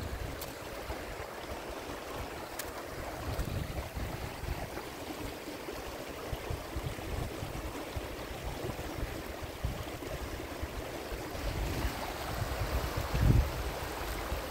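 Shallow stream running over a stony bed, a steady rushing of water, with irregular low rumbles of wind on the microphone and a louder low thump near the end.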